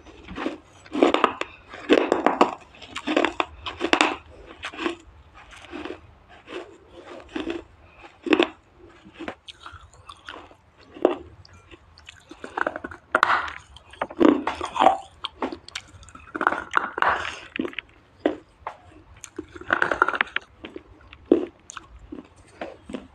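A person biting and chewing pieces of wet clay close to the microphone: irregular crunches, often a second or so apart and sometimes in quick runs.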